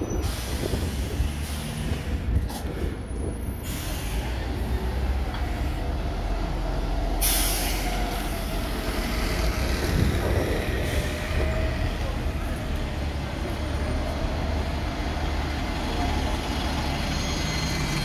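Diesel bus engines running as buses stand and pull through a bus stand, with a sharp air-brake hiss about seven seconds in.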